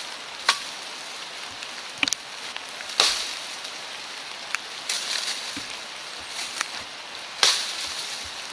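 A compact emergency shovel's blade chopping into holly branches: about half a dozen sharp, uneven strikes, the loudest about three seconds and seven seconds in, each followed by a brief rustle of leaves. A steady hiss of rain runs underneath.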